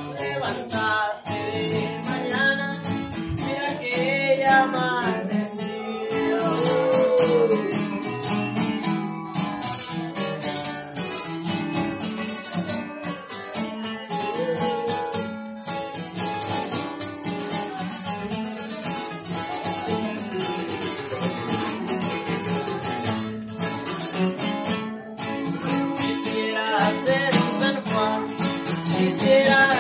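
Acoustic guitars strummed and picked as a live accompaniment while a young man sings a song.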